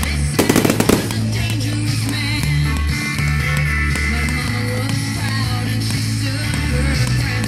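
Rock music with a steady bass line and guitar. About half a second in, a quick cluster of firework bangs and crackles sounds over it.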